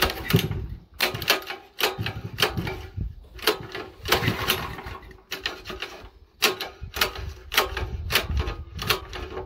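Sharp clicks and knocks, about one or two a second, from hands handling a Honda GX340 small engine that will not start; the engine itself is not running.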